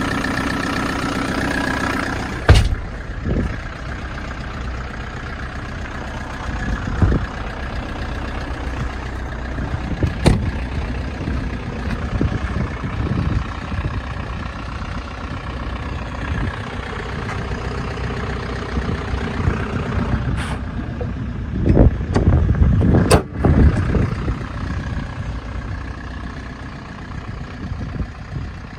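Kia Bongo3 K2700's 2.7-litre diesel engine idling steadily, with a few sharp knocks over it: one about two and a half seconds in and several in a cluster later on.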